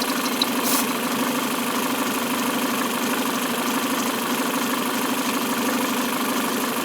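Peugeot 307's EW10J4 2.0-litre four-cylinder petrol engine idling steadily, with a short high chirp from a worn timing-belt tensioner roller near the start. A brief rustle comes about a second in.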